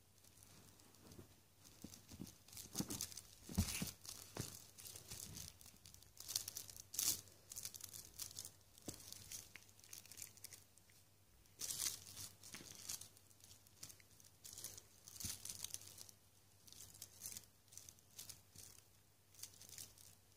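Irregular bursts of scratching and rustling on a fleece blanket, as a British shorthair cat bats at a feather wand toy.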